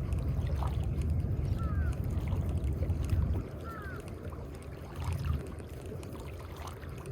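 Low outdoor rumble of wind or water that drops off about three and a half seconds in. Over it, a short double chirp repeats about every two seconds.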